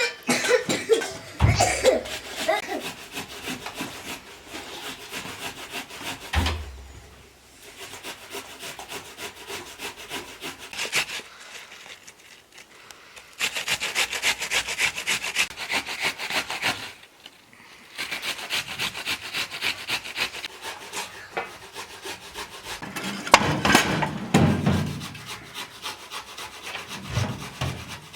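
Fast, even rasping strokes, like a hand saw or hard rubbing on wood, in runs of a few seconds with short pauses between them. A few low thuds come near the start and again near the end.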